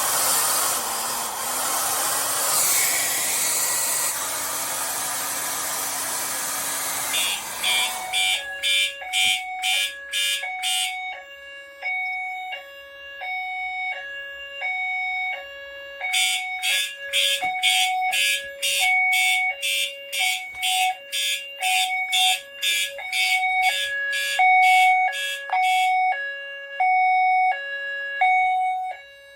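A hair dryer blows on a Notifier FST-851R heat detector for about eight seconds, then stops as the fire alarm trips. Siemens ZH-MC-R and FCI HE8F notification appliances then sound on California Code. A steady alternating two-tone signal is heard, and over it a horn pulses about twice a second in bursts of up to ten seconds, with a pause of about five seconds between bursts.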